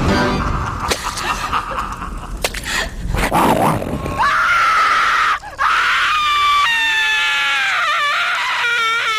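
A string of clipped sound effects: a few seconds of noisy crashing with sharp knocks, then a long high-pitched scream, held for several seconds, stepping down and wavering in pitch near the end.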